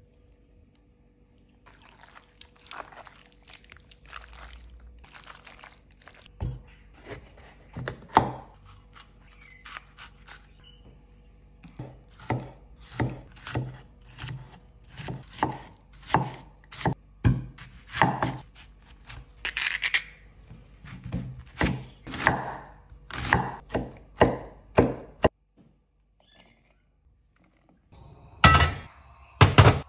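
Chef's knife chopping a bell pepper on a thick wooden board: a long run of sharp thunks, about one to two a second, that stops suddenly. Near the end comes a short pause, then a cast-iron skillet is set down on the stovetop with a couple of loud knocks.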